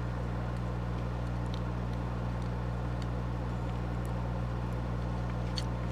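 Steady low background hum, with a few faint small clicks of the plastic parts of an HO-scale model locomotive being handled as the cab is slid back on.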